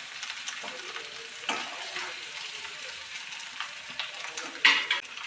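Mashed boiled potatoes with turmeric sizzling in hot oil in a kadai while being stirred, with a steady frying hiss and a few sharp spatula scrapes against the pan, the loudest about a second and a half in and near the end.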